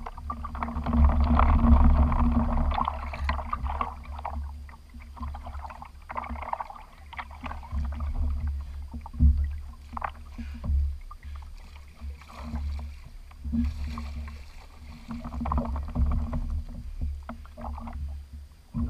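Water sloshing and splashing at the side of a kayak, swelling and fading irregularly over a steady low rumble.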